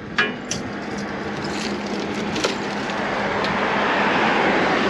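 Motor-driven sugarcane juice crusher running, with a few sharp cracks in the first second as cane splinters between the rollers, then a steady grinding that slowly grows louder.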